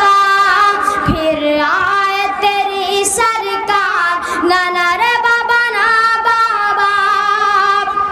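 A boy singing verse in the tarannum style of a mushaira, in long held notes that step and bend from one pitch to the next.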